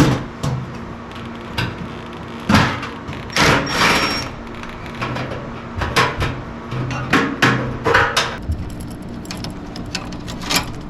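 Irregular metal clanks, knocks and short scraping rattles as mounting brackets are taken off a furnace blower motor and fitted onto the replacement motor, with a steady low hum underneath.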